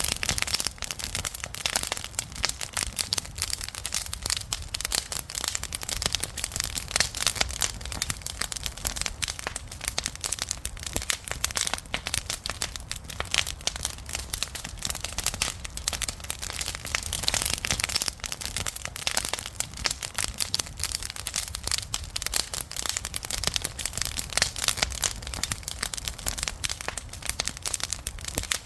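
Campfire crackling: a dense, even stream of small pops and snaps from burning wood.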